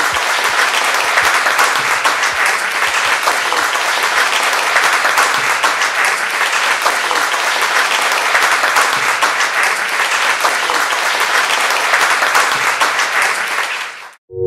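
Audience applauding steadily, a dense patter of many hands clapping that cuts off suddenly near the end.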